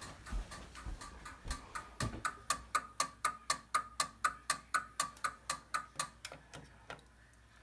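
Fire alarm notification device sounding a march-time pattern: rapid, evenly spaced sharp strikes with a short ring, about four a second, starting about two seconds in and growing fainter until they stop near the end.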